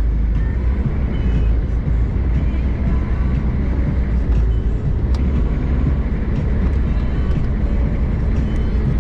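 Off-road vehicle driving over rough ground: a steady, loud low rumble of engine and tyres.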